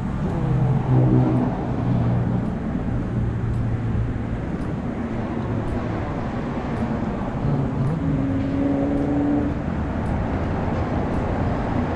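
Car driving: steady road and engine noise, with the engine note briefly rising and falling twice.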